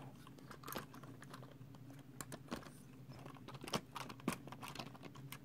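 Light, irregular clicking of LEGO plastic train parts, the cars and their couplings being handled and fitted back together on the track.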